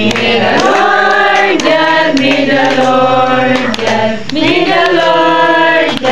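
A group of people singing a birthday blessing song together in long drawn-out notes, with hands clapping along.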